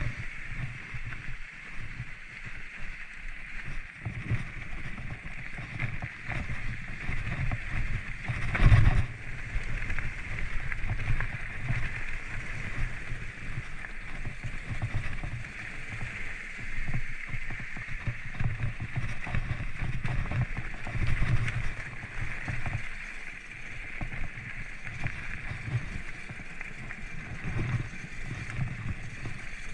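Mountain bike riding down a rough trail: a steady rumble and rattle from the tyres and frame over the ground, with a constant high hiss. Many small knocks run through it, and one loud jolt comes about nine seconds in.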